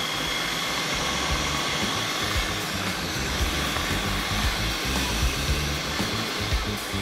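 Electric food processor running steadily, its blade chopping raw white fish fillet into a paste: an even motor whine.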